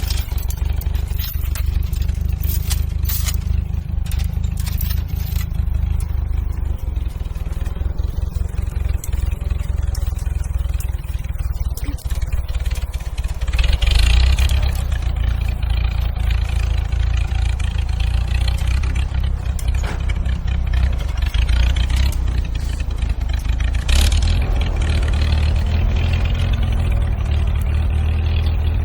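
Tractor engine running steadily with a low rumble, with scraping, rustling and clattering as brush and branches are moved; the noise surges louder about halfway through and again near the end.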